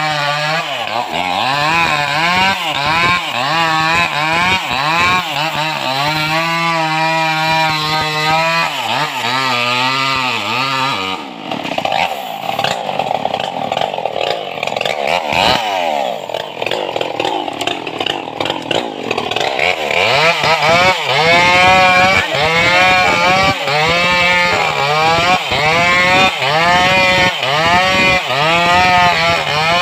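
Stihl MS 381 two-stroke chainsaw cutting through a felled tree trunk, its engine pitch rising and falling over and over as the chain bites into the wood. For several seconds in the middle the rising and falling gives way to a more even sound, then the repeated surges resume.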